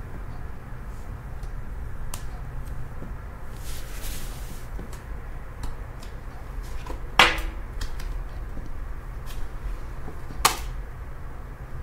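Tarot cards handled and shuffled by hand: soft clicks and slides of card stock, a brief rustle about four seconds in, and two sharp snaps, the loudest about seven seconds in and another near the end, over a steady low hum.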